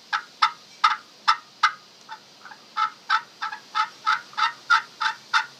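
Slate-over-aluminum friction turkey call (pot call) worked with a striker, giving a string of about seventeen short, sharp hen-turkey calls roughly a third of a second apart. Two softer notes come a little before the middle, then a steadier run of about three calls a second.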